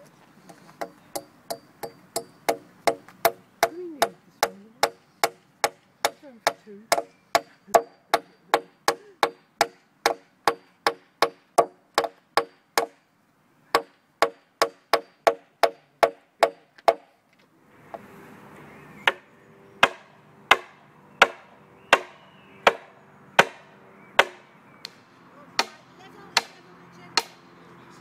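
Claw hammer driving nails into a wooden plank, each strike ringing briefly: a fast, even run of about three strikes a second, then after a pause a slower run of strikes.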